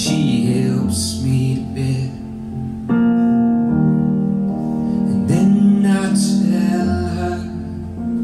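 Male singer accompanying himself on a Roland RD-300NX stage piano, playing held chords that change every couple of seconds while singing.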